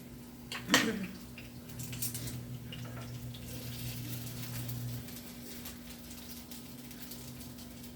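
Cassava frying in cooking oil, a faint steady sizzle with scattered light crackles. A single sharp clink or knock comes just under a second in.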